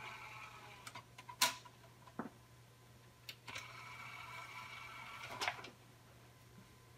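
Pioneer PDR-555RW CD recorder's disc tray: the loading motor whirs briefly as the tray finishes opening, then come a few sharp clicks as a CD is set into the tray. Near the middle the motor whirs again for about two seconds as the tray closes, ending with a clunk.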